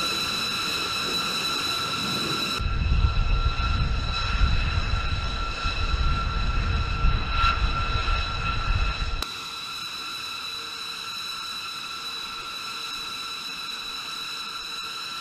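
B-2 Spirit's General Electric F118 turbofan engines running, a steady high whine made of several tones. From about two and a half seconds in, a deep gusty rumble joins for about six seconds as the loudest sound, then stops abruptly, leaving the whine alone.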